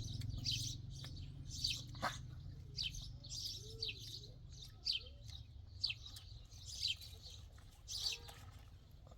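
Small birds chirping: many short, high chirps falling in pitch, repeating about once or twice a second, over a faint low steady rumble.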